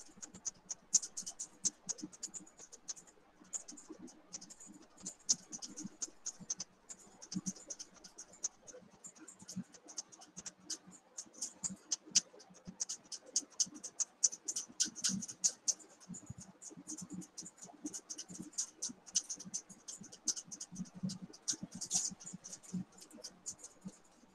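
Faint, irregular clicks and scratchy crackles picked up by a video-call microphone, scattered unevenly and a little busier in the second half.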